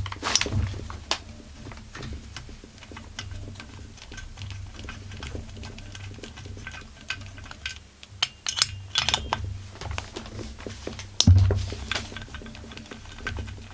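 Hand tools clicking and clinking on metal as the stiff cylinder head screws of a Husqvarna 44 chainsaw are worked loose, with one louder knock near the end.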